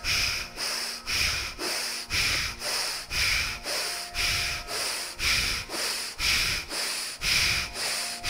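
Bhastrika pranayama (bellows breath): forceful, rapid breaths in and out through the right nostril, about two a second, alternating stronger and weaker.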